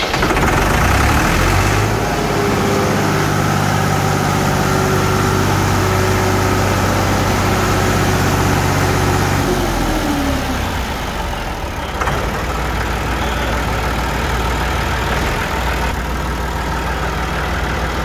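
Massey Ferguson tractor diesel engine running just after start-up, a little above idle. Its pitch drops about ten seconds in and it settles into a steady idle.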